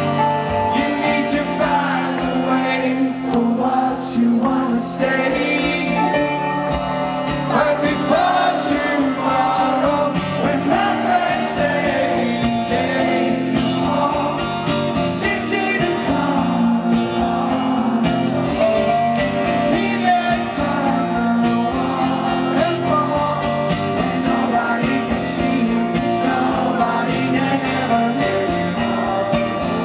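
Live rock band playing with a lead vocal over strummed guitars, steady and loud throughout.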